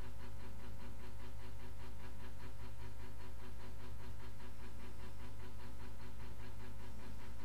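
A steady low hum with a few constant tones and a fast, even pulsing over it, the background noise of a running machine or electrical equipment in the room.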